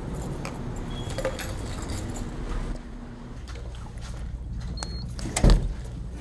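Footsteps over a steady low background hum, then a short high electronic beep from a door badge reader about five seconds in, followed by a heavy thump.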